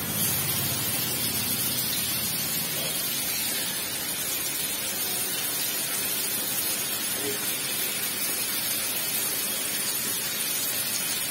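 Marinated tandoori chicken pieces sizzling steadily in hot oil in a small frying pan.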